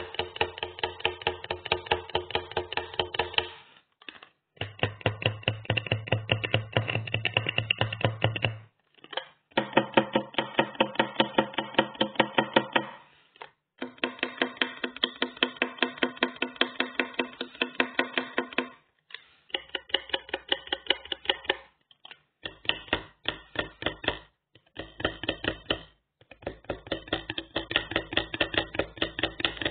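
A plastic card made to rattle in fast, even clicks that merge into a pitched buzz. It comes in runs of a few seconds each, every run at its own pitch, with short pauses between.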